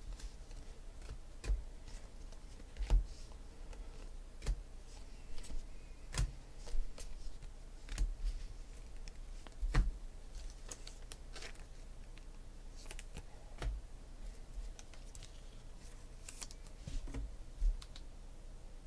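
Football trading cards being handled on a table: irregular light taps and clicks, spaced about a second apart, over a faint steady low hum.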